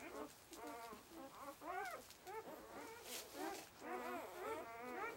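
Newborn puppies whining and squeaking in a string of short, high cries that rise and fall in pitch, coming thicker and overlapping about four seconds in.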